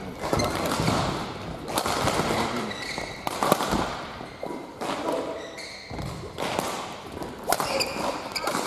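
Badminton rally: rackets striking the shuttlecock with sharp cracks at irregular intervals, mixed with footsteps thudding and shoes squeaking on the court floor.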